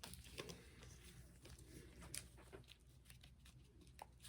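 Near silence, with a few faint soft clicks and rustles of trading cards being handled.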